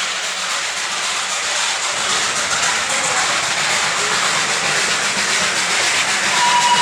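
Darjeeling Himalayan Railway toy train running past, a steady hissing rush that slowly grows louder. A steady high tone, like a whistle, starts near the end.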